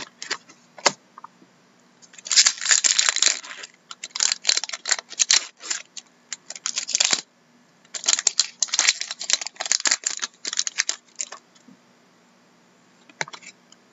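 Foil wrapper of a trading-card pack crinkling and tearing as it is opened and handled, in two spells of quick crackling a few seconds each, with cards being handled.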